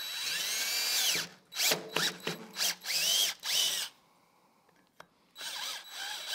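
Cordless drill run in short trigger bursts, its motor whine rising and falling in pitch with each pull, as a Time-Sert kit drill bit enlarges a drilled-out broken exhaust-stud hole in a cylinder head. A longer run comes first, then several quick bursts, a pause of over a second, and two weaker bursts near the end.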